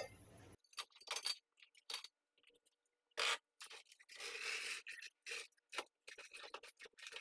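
A metal jack stand being handled and set down under a car: a string of short scrapes and knocks, with a longer scrape about four seconds in.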